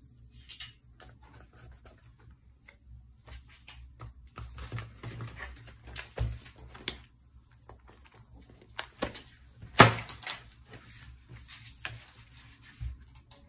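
Rustling and clicking of a clear zippered plastic pouch and sticker sheets being handled, a run of small taps and crinkles with one sharp, louder knock about ten seconds in.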